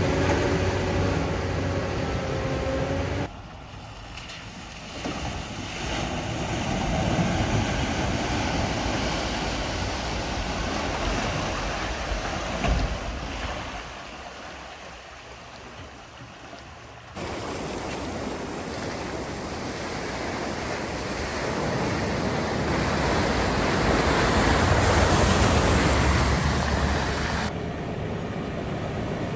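Vehicles driving through a flooded ford: rushing, splashing water with wind on the microphone, in several short clips cut together. An engine hum is heard in the first few seconds.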